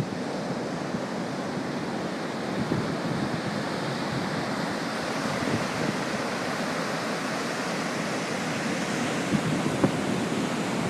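Heavy storm surf from a hurricane breaking in a steady wash, with wind buffeting the microphone.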